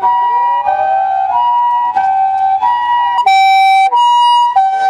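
Ambulance two-tone hi-lo siren, a higher and a lower note alternating about every two-thirds of a second. A harsher, buzzier tone breaks in for about half a second a little after three seconds in.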